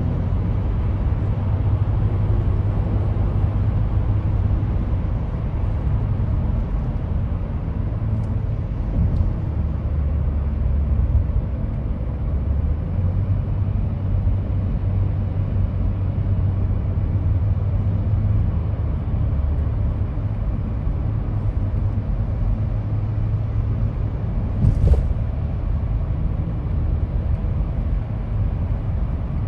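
Steady road and engine noise of a car cruising on a freeway, heard from inside the cabin, a continuous low rumble. A brief sharp click near the end.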